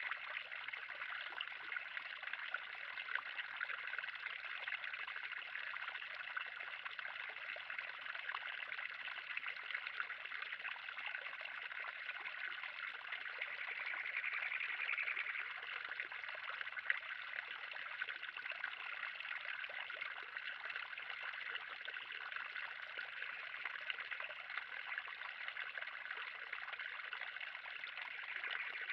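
Water steadily trickling and splashing into a pond, a continuous splashing hiss that swells a little about halfway through.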